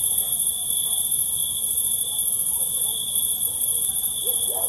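Crickets chirping in the wild: a very high-pitched trill that comes in bursts of about a second with short gaps, over a steady high tone. Faint short calls can be heard underneath, clearest near the end.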